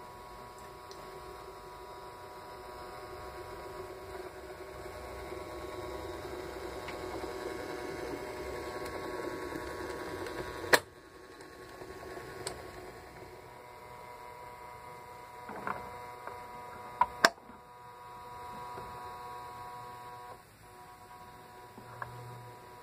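LGB G-scale rack locomotive 22460 running past, its electric motor and gearing giving a steady whirring hum that grows louder over about ten seconds and then falls away. It is broken by a few sharp clicks from the running gear on the track.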